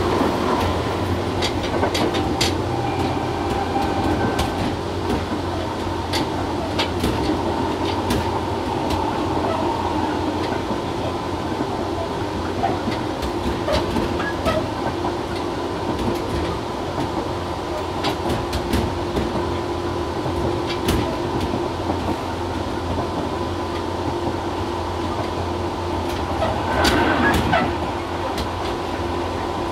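Tobu 6050 series electric train running at speed, heard in its motor car: a steady running rumble with an even hum from the TM-63B traction motors and gears, and scattered clicks of wheels over rail joints. The noise swells louder briefly near the end.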